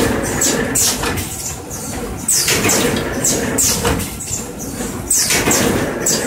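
Paper tube rolling machine running through its cycle: a falling hissing swish followed by a clatter, repeating about every second and a half.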